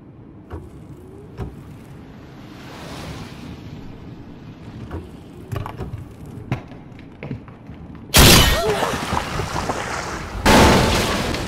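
Rain falling steadily on a mountain road, then two sudden loud booms, about eight and ten and a half seconds in, each fading over a second or two.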